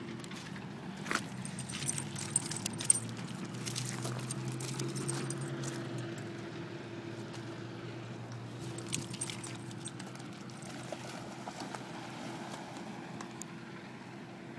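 Footsteps on loose rocks and pebbles, stones clicking and knocking underfoot, several sharp clicks in the first few seconds and again near the middle. A steady engine hum runs underneath.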